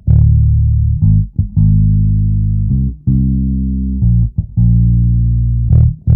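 End-card music led by a bass guitar playing loud, held low notes, with short breaks and quick note changes between them.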